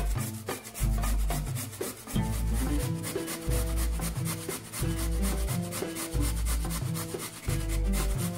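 Carrot being grated on a stainless-steel cone grater: a steady run of rasping strokes, over background music with a regular deep beat.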